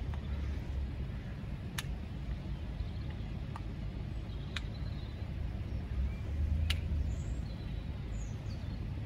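Outdoor background: a steady low rumble with a few sharp single clicks and faint bird chirps.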